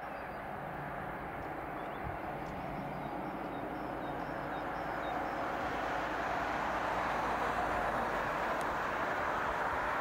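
A DB class 218 diesel locomotive and its train approaching from a distance: a steady rumble that grows gradually louder.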